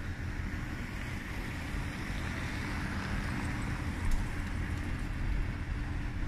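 Outdoor city traffic ambience with low rumble from wind on the microphone; a car drives past, its tyre hiss swelling about two to four seconds in.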